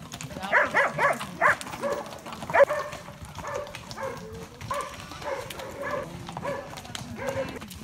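Short animal calls, repeated many times and bending in pitch, with a louder cluster in the first three seconds.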